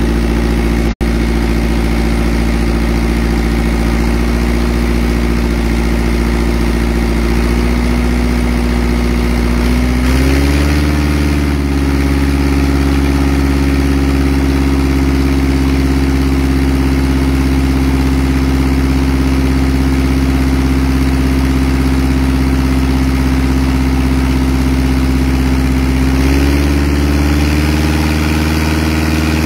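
Engine-driven deck wash pump running steadily, its engine stepping up in pitch about ten seconds in and again near the end, with the rush of a high-pressure hose jet washing seed oysters off the deck.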